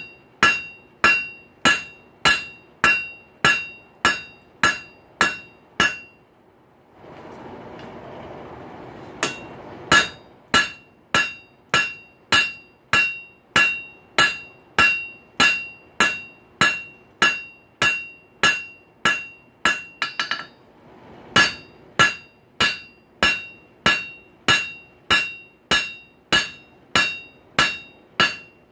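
Hand hammer striking a hot rail spike on an anvil, about two blows a second, each with a bright ring, as the end of the spike is forged flat. The hammering stops twice for a few seconds, and a brief steady rushing noise fills the first pause.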